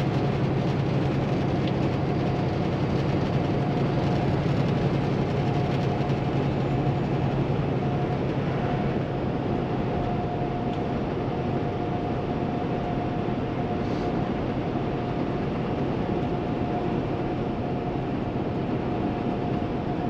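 Cab interior of a 2016 Kenworth T680 semi with a Paccar MX13 diesel cruising at highway speed: a steady low engine drone under tyre and road rush, with a thin high whine held above it.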